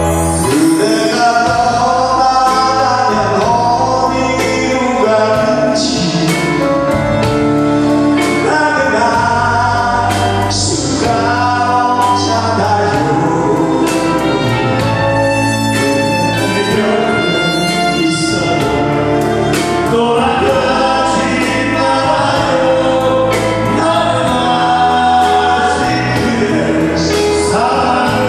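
A live stage duet by a classical singer and a rock singer, two male voices backed by a band with drums and cymbal crashes.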